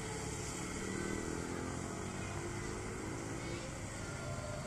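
Road traffic on a wet road: engine hum from passing vehicles, its pitch sliding slowly downward, with a steady hiss over it. A motorcycle engine comes closer near the end.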